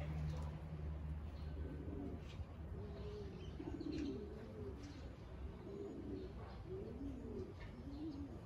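Domestic pigeons in a loft cooing, several low, arching coos repeating one after another. A low hum dies away in the first second.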